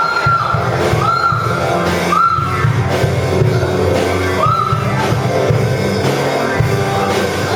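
Rock-style music for a stage musical number, with a voice singing over it.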